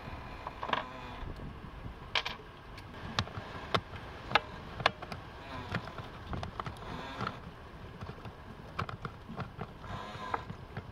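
Small, irregular metal clicks and scrapes of a nut driver working a cable terminal nut on an outboard's start relay, over a low steady rumble.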